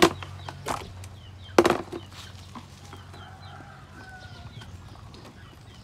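Hands rustling through wet coconut fibre in a plastic tub. Over it come two loud, short calls about a second and a half apart, taken for a chicken clucking, then a faint drawn-out call and small high chirps.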